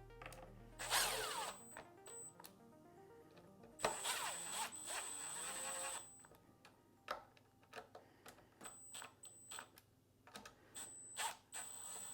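Small cordless Milwaukee screwdriver whirring in two short runs, briefly about a second in and then for about two seconds from four seconds in, driving screws into the polycarbonate cover of a key duplicating machine. Light clicks of parts being handled follow. Background music plays throughout.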